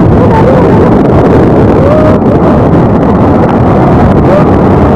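Loud, steady rush of a river in flood, a dense roar of churning water.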